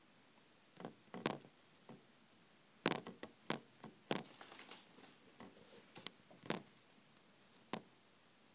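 Faint scattered clicks and rustles, a dozen or so short noises at irregular intervals, in a small room.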